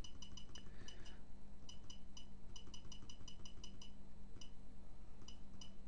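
Rapid run of short, high-pitched ticks, several a second in quick groups with brief pauses, from scrolling down through the alarm panel's programming menu.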